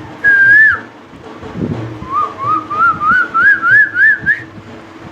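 A man imitating an Asian koel's call by whistling: one held note, then a run of about eight short notes that climb steadily in pitch.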